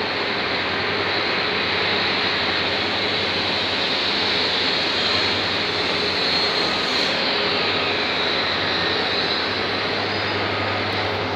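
Steady rushing noise of air-handling machinery, with a low hum underneath.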